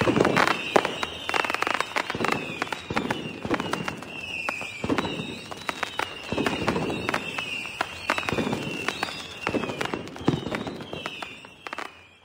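Fireworks: a steady run of bangs and crackles with high whistles that fall in pitch, about one a second, fading out near the end.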